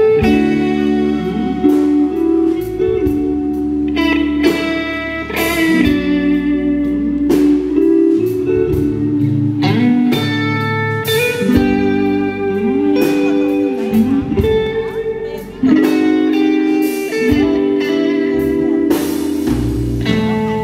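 Live rock band playing an instrumental passage: a lead electric guitar solo of long held notes with string bends and slides, over electric bass and drums with repeated cymbal crashes.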